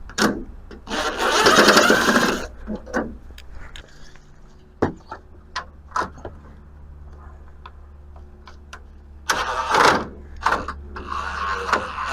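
Power screwdriver whirring in short bursts, backing screws out of a plastic truck grille: once about a second in and again twice near the end, with scattered clicks and knocks of handling in between.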